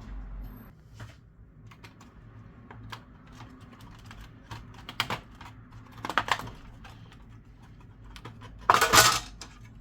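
Light clicks and taps of small tools and parts being handled, with a louder scraping rustle about nine seconds in.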